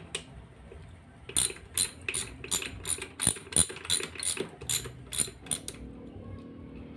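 Ratchet wrench clicking on a socket extension while turning a bolt inside a Suzuki Multicab manual transmission case: a run of about a dozen sharp clicks, roughly three a second, starting about a second in and stopping near six seconds.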